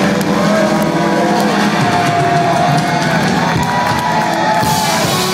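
Live rock band playing loud, with electric guitars and drums, heard from among the audience, with the crowd cheering over it.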